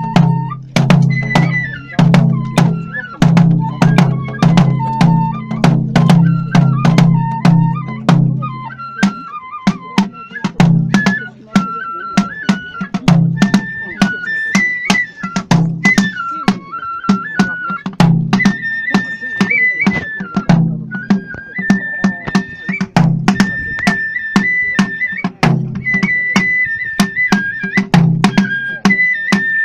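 Kagura festival music: a Japanese bamboo flute plays a high melody that steps up and down, over steady, sharp strikes of a taiko drum and other percussion.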